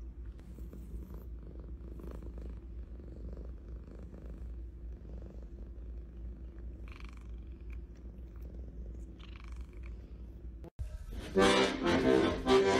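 Domestic cat purring, a steady low rumble, with two faint brief higher sounds in the middle. Near the end the purring cuts off and a loud burst of noise follows as a second cat scrambles in a bathroom sink.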